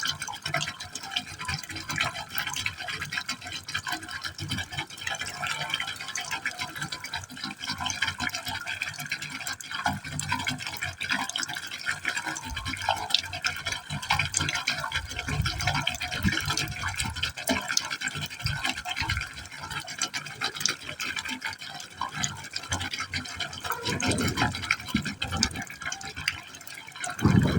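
Water falling into a pipe hole, a steady trickling splash with many fine irregular drips and gurgles. A louder low rumble starts just at the end.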